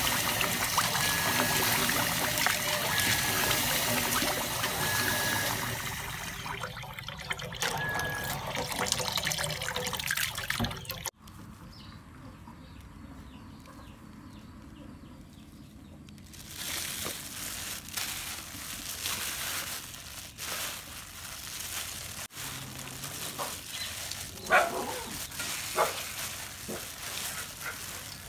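Tap water running into a metal bowl of rice as it is washed by hand, for about the first ten seconds. After a sudden cut the sound drops; in the latter part there is quieter rustling and scraping of a plastic-bagged hand crumbling yeast into cooked rice and mixing it.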